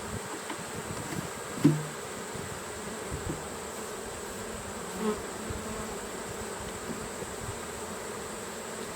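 Honey bees buzzing steadily around an opened, freshly disturbed hive, with one short knock about two seconds in.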